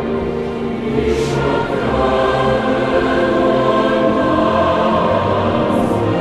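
Background choral music: voices singing long held chords.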